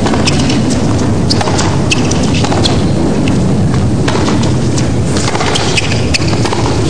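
Tennis rally on a hard court: sharp racket strikes and ball bounces come through at irregular intervals over a steady low rumble of court ambience.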